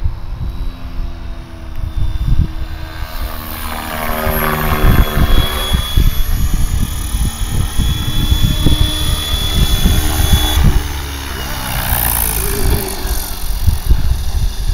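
Electric RC helicopter, an S four Concept with a Scorpion 4025-890 brushless motor on 6S, in flight: main rotor blades swishing with a steady motor and gear whine. About four to six seconds in, the pitch sweeps down and back up as the helicopter passes. A rough low rumble runs underneath throughout.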